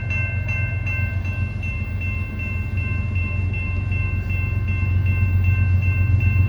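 Railroad grade-crossing bell ringing in rapid, even strokes as the crossing gates are down, over a low rumble from the approaching freight train that grows louder toward the end.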